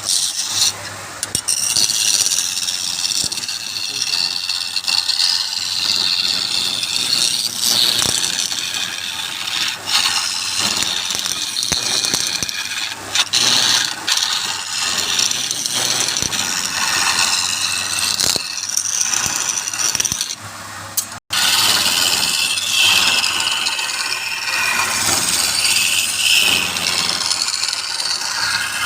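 Wood lathe running while a turning tool works the spinning wood, making a steady hissing scrape with wavering pitch. There is a brief break about two-thirds of the way through.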